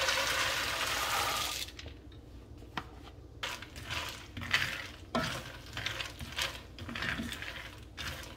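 Raw peanuts pouring into warm oil in a cast-iron skillet, a dense rattling rush with a light sizzle that stops after about a second and a half. Then a wooden spoon stirring the peanuts in the pan, with irregular clattering knocks and scrapes.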